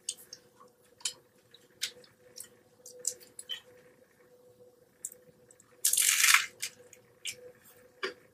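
Close-up mouth sounds of chewing a turkey taco: scattered wet smacks and clicks, with one louder, noisier burst about six seconds in.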